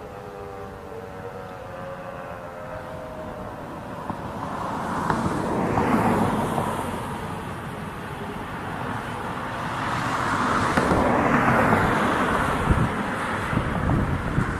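The last faint falling tone of a winding-down tornado siren fades out in the first few seconds, then road traffic: two vehicles pass, their tyre and engine noise swelling and falling away about 6 and 11 seconds in.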